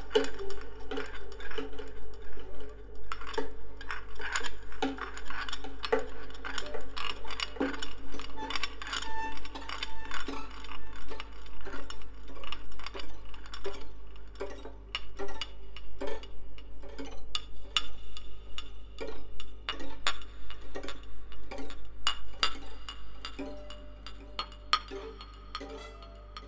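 Background music: a track built on many sharp, clinking clicks and short pitched notes in a busy rhythm.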